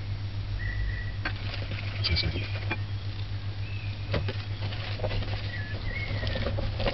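Plastic sieve shaken and tapped over a glass bowl while sifting flour, giving a scatter of light clicks and knocks over a steady low hum. A few short high chirps come and go.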